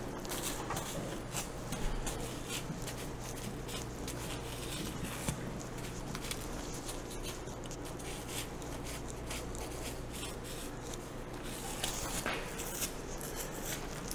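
Knife strokes separating a thick bison hide from a hanging carcass as the hide is pulled down: faint scratchy slicing and tearing sounds, thickest about a second in and again near the end, over a steady low hum.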